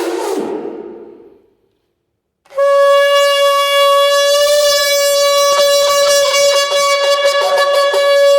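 Shofar (ram's horn) blown in one long, steady note that begins about two and a half seconds in and is held without a break. Just before it, a short burst of noise fades away at the very start.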